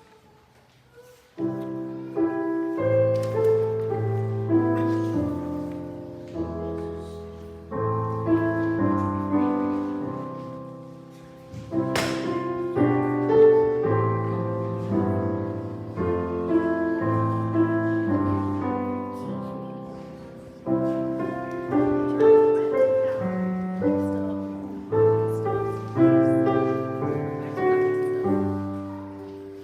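Piano playing slow, struck chords that ring and fade, starting about a second in. There is a single sharp click near the middle.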